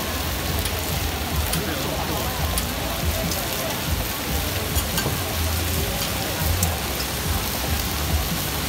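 Chicken pieces on skewers sizzling steadily on a hot flat-top griddle, a dense frying hiss with scattered small crackles, over a low hum.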